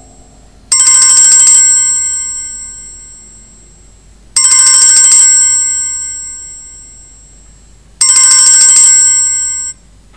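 Mobile phone ringtone signalling an incoming call: a bell-like ring sounds three times, about three and a half seconds apart, each ring fading away. The third ring cuts off suddenly near the end.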